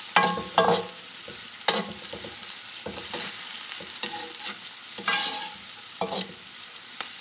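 Julienned carrots and green capsicum sizzling in hot oil in a metal wok while a metal spoon stirs them, with a few sharp scrapes and clinks of the spoon against the pan over the steady sizzle. The sizzle means the capsicum's water is still cooking off.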